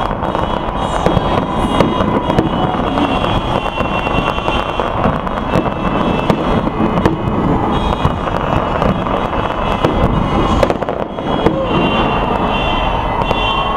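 Fireworks display: a dense, continuous run of bangs and crackles with no let-up. A faint steady high tone comes in about eight seconds in and again near the end.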